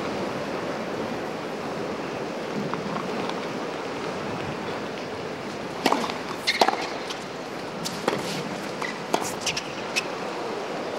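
Tennis ball struck by rackets: a serve and the return about six seconds in, then a few more hits and bounces of a rally. Under them runs a steady hiss of wind and stadium crowd.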